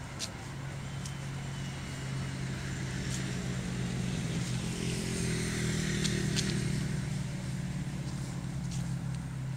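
Motor vehicle engine running close by, a low hum that rises in pitch and gets louder about halfway through, then eases off. A few sharp clicks are heard over it.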